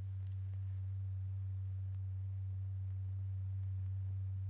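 A steady, low, pure tone: the sound that drives the vibrating paper diaphragm strewn with lycopodium powder, setting the powder heaps circulating in convection.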